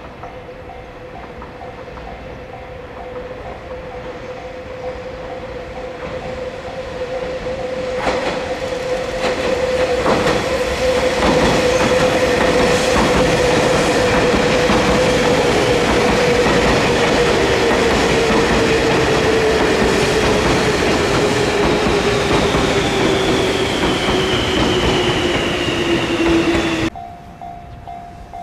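E351 series electric train approaching and passing over a level crossing, its wheels clicking over the rail joints. A whine falls in pitch as the train goes by, over the warning bell of the level crossing. The train sound cuts off abruptly near the end, leaving the crossing bell.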